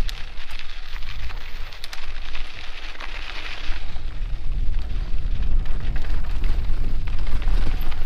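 Mountain bike riding along a dirt trail: wind buffets the camera microphone with a heavy rumble, while the tyres roll over the dirt and the bike gives scattered clicks and rattles.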